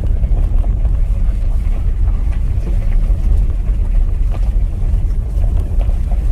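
Tesla's tyres rolling over a gravel road: a steady low rumble with scattered small clicks of stones. There is no engine note, since the car is electric.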